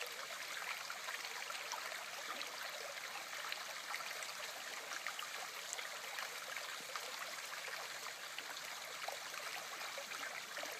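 River current rushing and gurgling steadily around a fallen branch in the water, with small splashy ticks scattered through it.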